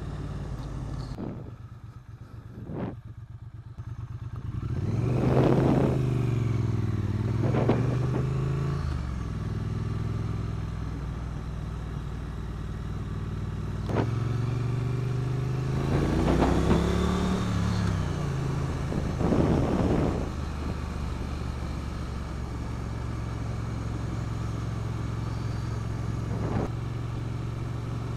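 Triumph Street Twin 900's parallel-twin engine running under way, heard from the rider's seat with wind noise over it. It drops quieter for a moment near the start, then twice rises and falls in pitch as the bike pulls through the gears, with a few sharp clicks.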